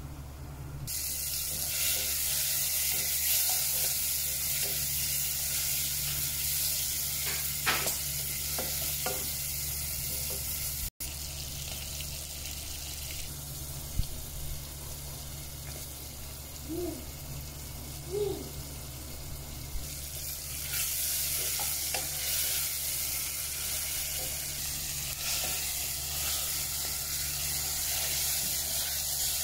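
Food sizzling and frying in hot oil in a pot while being stirred with a wooden spatula, over a steady low hum. The sizzle drops out for an instant about eleven seconds in and is loudest in the last third.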